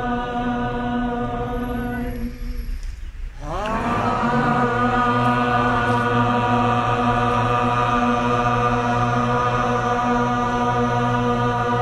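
A group of voices chanting the Sikh word "Akal" in unison, loud, each call a long held note, sung to carry a departed soul to the other side. About three seconds in the note breaks off for a breath, and the next call starts with a downward slide and then holds steady.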